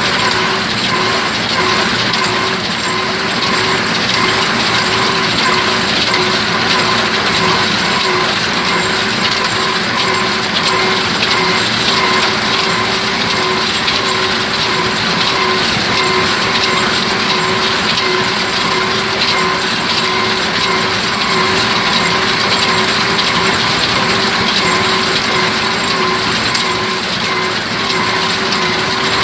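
Fiat 750 tractor running a New Holland 940 hay baler: a continuous mechanical clatter of the baler's gears and moving parts over the running engine, with a steady whine.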